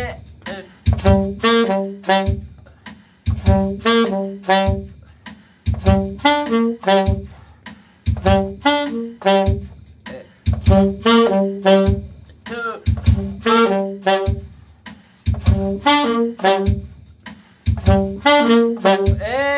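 Two alto saxophones playing together: eight short phrases of quick notes, one about every two and a half seconds with a brief gap after each, a repeated scale exercise.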